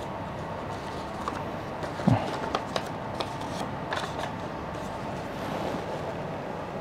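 Sheet of A4 paper crinkling and crackling in the hands as the last folds of a paper airplane are creased, a few sharp crackles and a dull thump about two seconds in, over a steady background hiss.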